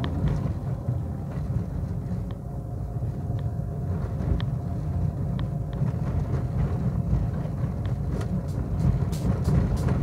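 Car driving on an unpaved dirt road, heard from inside the cabin: a steady low engine and tyre rumble, with occasional sharp clicks and rattles that come more often near the end.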